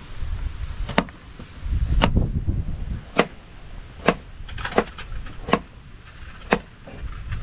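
Kitchen knife slicing carrots lengthwise, striking the chopping board in sharp knocks about a second apart, seven in all, with a brief low rumble around two seconds in.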